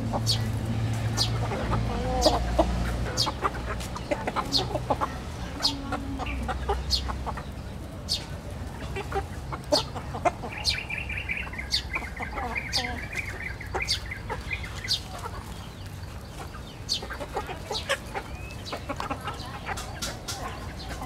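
Chickens and roosters clucking while they feed, over many sharp clicks of beaks pecking at grain on hard dirt. A high trilling call runs for a few seconds midway.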